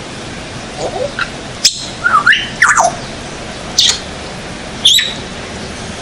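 African grey parrot giving a string of short whistles and squawks, some sliding up or down in pitch, each less than a second long and spaced about a second apart.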